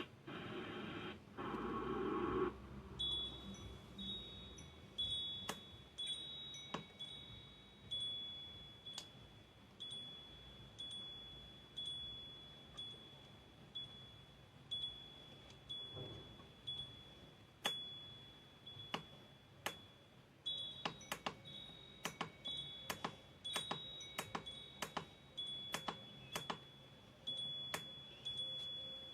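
A wake-up light alarm clock playing a chime sound through its small speaker: short, high ringing tones about once a second. Sharp clicks are scattered through, more of them in the second half.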